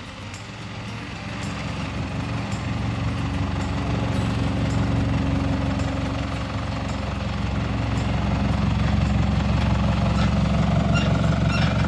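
Toyota Prado's engine running under load while driving off-road, a low rumble that grows steadily louder, with a further rise about eight seconds in.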